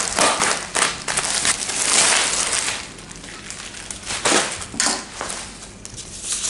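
Plastic wrapping and bubble wrap crinkling and rustling as a parcel is cut open and the wrap pulled off, loudest in the first two seconds, with another burst about four seconds in.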